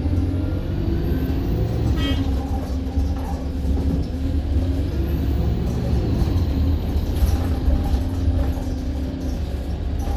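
City bus engine running under way, heard from inside the passenger saloon: a steady low rumble with the engine note drifting up and down. A faint high whine rises twice. There is a short beep about two seconds in.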